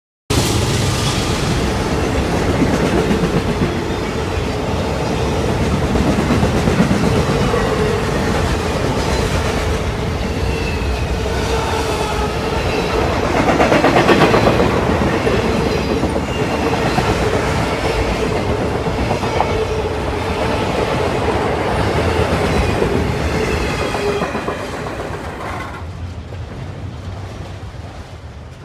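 Freight train cars rolling past, wheels clacking over the rail joints, with a steady tone running through the noise. It grows fainter over the last few seconds.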